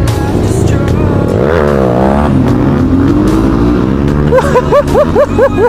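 Dirt bike engines running under throttle, their pitch rising and falling as the bikes ride together and one passes another. Near the end a quickly warbling tone repeats several times over the engines.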